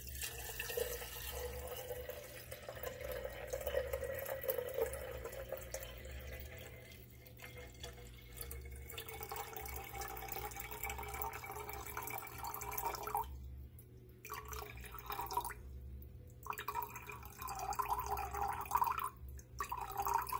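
Water pouring in a steady stream into a stainless steel gooseneck kettle as it is filled by weight. In the last third the stream stops and starts a few times in short spurts as the kettle is topped up.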